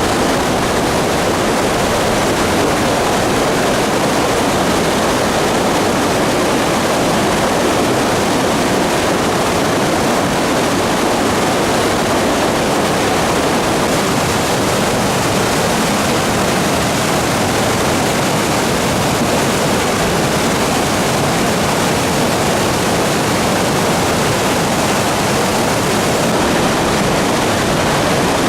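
A river in flood after record typhoon rainfall: fast floodwater rushing in a loud, steady roar that does not change.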